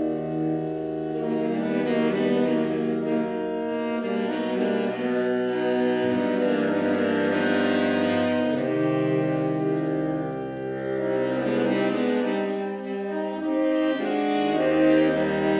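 Saxophone quartet, a baritone saxophone among them, playing slow held chords in close harmony and moving together to a new chord every few seconds.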